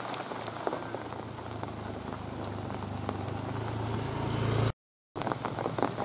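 Steady rain falling, with many small ticks of drops landing close by. A low hum rises in level through the middle, and the sound cuts out briefly near the end.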